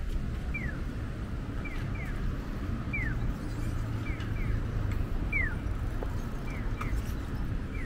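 Japanese audible pedestrian crossing signal giving its electronic bird-like 'piyo' chirps while the walk light is green: short falling chirps, a single chirp answered by a pair, repeating about every two and a half seconds, over low traffic rumble.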